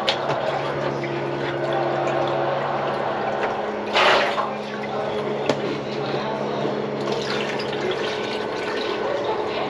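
Water running in the plugged kitchen sink's plumbing, a steady rush over a low hum, with a short louder rush about four seconds in and a sharp click a second later.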